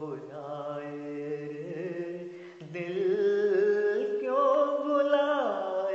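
A man singing long, drawn-out notes with a wavering vibrato over a karaoke backing track. The voice grows louder about halfway through and slides down near the end.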